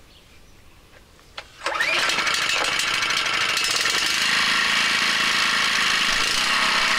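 3000-watt inverter generator starting: a click, then the engine catches within two seconds and runs steadily, settling into an even hum from about four seconds in.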